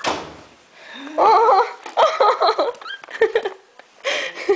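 People giggling in short wavering bursts, about a second in and again around two seconds.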